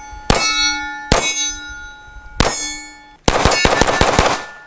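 SIG Sauer P226 Legion SAO pistol shots hitting steel targets. Three single shots are each followed by the steel plate ringing on for about a second, then comes a quick string of about eight shots with ringing hits.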